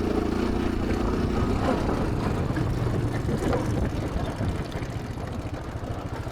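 ATV (quad bike) engine running steadily at low revs. A second, higher engine note fades out over the first second and a half.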